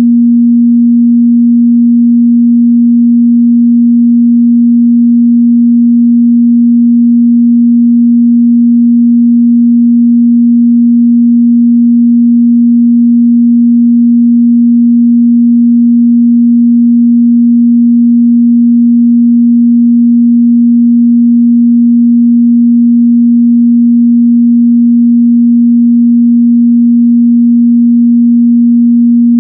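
A steady, loud pure sine-wave test tone at 237 Hz, one unchanging pitch in the mid-bass with no other sound.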